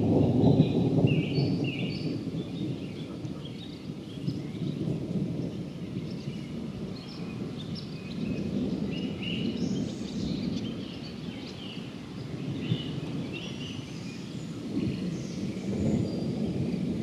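Thunder rumbling low and rolling, loudest in the first couple of seconds and swelling again near the end, with birds chirping and singing through it.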